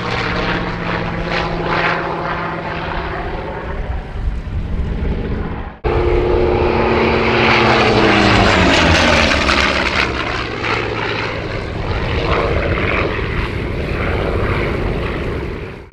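Chance Vought F4U-5NL Corsair's Pratt & Whitney R-2800 radial engine and propeller making low display passes, the engine note falling in pitch as the plane goes by. The sound cuts off suddenly about six seconds in, and another pass follows with the same falling engine note.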